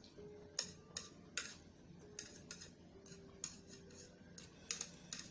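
Eating instant fried noodles with plastic chopsticks from a plate: a string of small sharp clicks, a few a second and irregular, from the chopsticks and the chewing.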